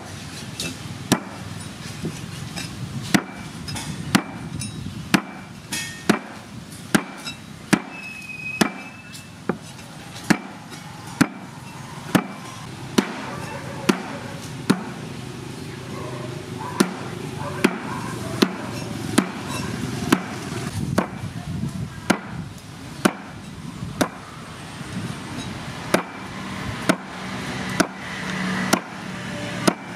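Heavy cleaver chopping through eel onto a wooden chopping board, one sharp chop about every second.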